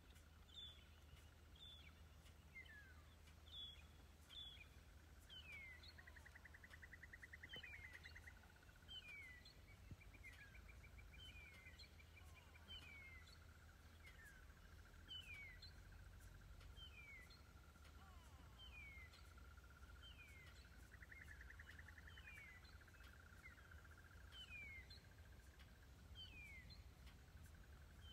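Faint bird calls: a short whistled note that falls in pitch, repeated about once a second, with a steady high tone and a couple of brief trills behind it.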